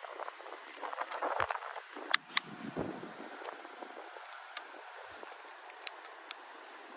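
Handling of a side-by-side 12-gauge shotgun: rustling with metallic clicks. Two sharp clicks come about two seconds in, and a few faint ticks follow.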